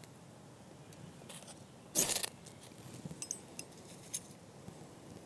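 Ferro rod scraped with a striker to throw sparks: a faint scrape a little over a second in, then a louder one about two seconds in. A few faint ticks follow.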